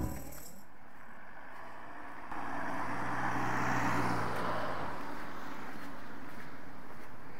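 A car passing by on the road: engine hum and tyre noise swell up about two seconds in, peak, then fade away.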